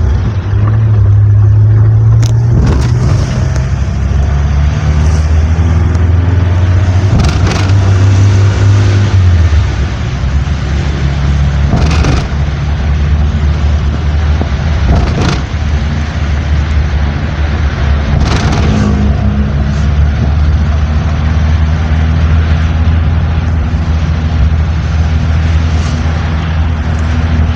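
A road vehicle's engine running while travelling, a steady low hum that drops in pitch about nine seconds in. Several brief sharp noises cut across it along the way.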